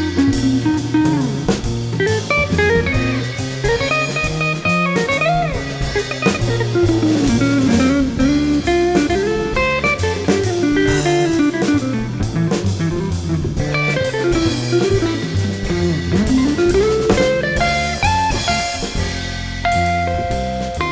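Background music: an instrumental break with bending electric guitar lead over bass and a drum kit.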